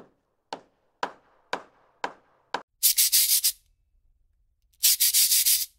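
Title-card sound effect: six sharp knocks evenly about half a second apart, then two short bursts of scraping, like sanding strokes on wood.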